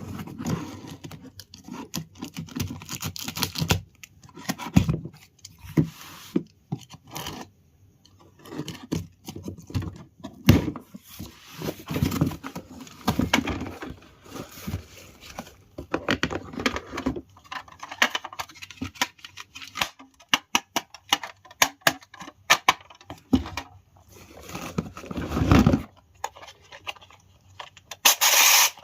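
A toy kitchen set's packaging and small plastic pieces being handled: irregular tearing and crinkling, with clicks and clatter of small parts. There is a louder burst of noise near the end.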